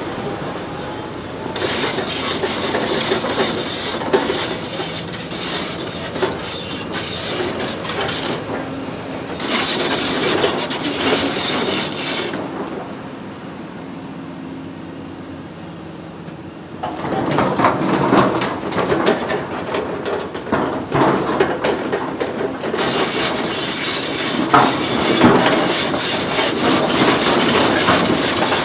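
Excavator tearing out railway track: steel rails and track parts scraping and clattering in three long spells, full of sharp clanks. In a quieter stretch in the middle the scraping stops and a steady diesel hum is left.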